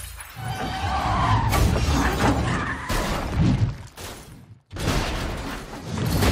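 Car crash sound effects: glass shattering and a car skidding and crashing, cutting out briefly about four and a half seconds in before the crash noise comes back loud.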